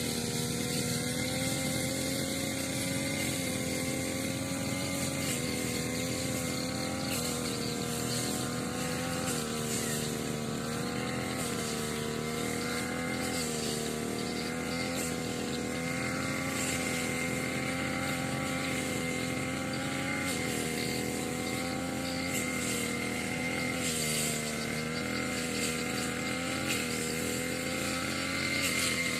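Engine of a motorised grass cutter (brush cutter) running continuously. Its pitch dips and recovers again and again, as happens when it cuts through grass.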